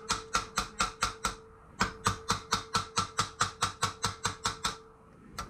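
Hammer striking a rivet set rapidly and evenly, about four blows a second, peening a rivet head on a steel breastplate, with the plate ringing faintly under the blows. There is a short pause about a second and a half in, then a single last blow near the end.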